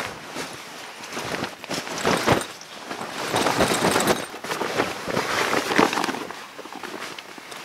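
Green sleeping bag and camouflage bivy cover rustling and swishing as they are pulled about and climbed into, in uneven bursts of fabric noise, loudest in the middle.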